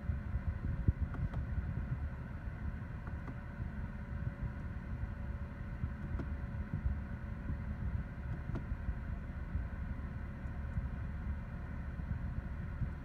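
BMW M3's 3.0-litre twin-turbocharged inline-six idling, a steady low rumble heard from inside the cabin, with a few faint clicks.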